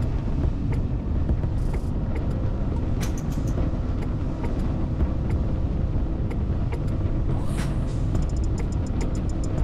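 Small outboard-powered fishing boat running at speed: a steady low rumble of motor, wind and water rushing past the hull, with scattered sharp ticks that come thicker near the end.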